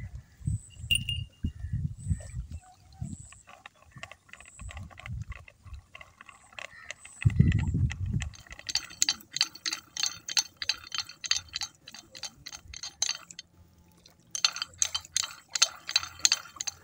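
Water splashing: a series of low thumps, one heavier thump a little past seven seconds, then rapid crackling splashes with a short break about thirteen seconds in.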